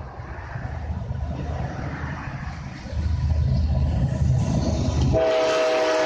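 Diesel freight locomotives approach with a low engine rumble that grows louder about three seconds in. About five seconds in, the lead locomotive's air horn begins a long, steady blast.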